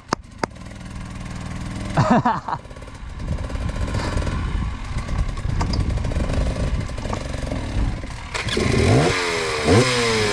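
Enduro dirt bike engine, ticking over slowly at first, then blipped up about two seconds in and run under throttle, with the revs climbing and dropping several times near the end.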